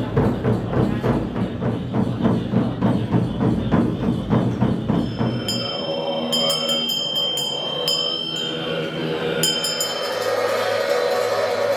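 Large Tibetan nga frame drums beaten in a steady rhythm, about four strokes a second. About five seconds in the drumming stops, and ringing bells and voices take over.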